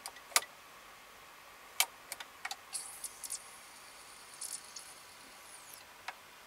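Sony CD player mechanism with a KSS-151A laser pickup reading a disc: a string of sharp clicks from the pickup and its drive, a high whirr of the spindle motor spinning up about three seconds in, and a thin whine falling in pitch shortly before the end. These are the sounds of the player focusing on the disc and reading its table of contents.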